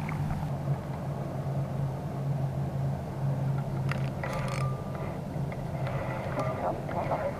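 Steady low mechanical hum on the boat, with a few short clicks and a brief squeak about four seconds in as the spinning reel is handled.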